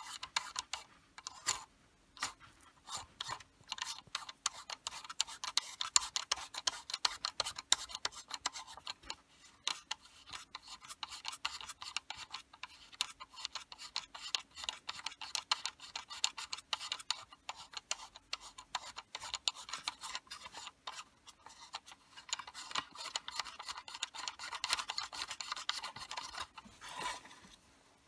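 Rapid rasping and clicking of plastic on plastic as a USB charger socket's threaded body and its plastic retaining ring are turned by hand in a plastic holder panel, with fingers rubbing on the plastic.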